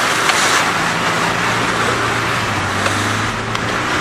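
A 4x4's engine runs at steady revs while muddy water splashes and sprays against the body and windshield, with occasional sharp slaps of mud, heard from inside the cab.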